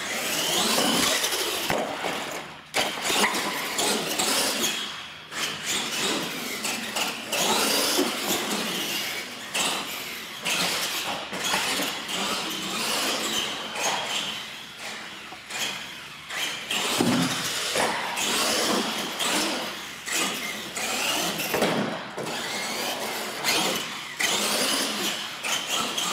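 Radio-controlled monster trucks driving hard, their electric motors and drivetrains whining as they surge up and down in speed, with tyres scrubbing on concrete and occasional sharp knocks.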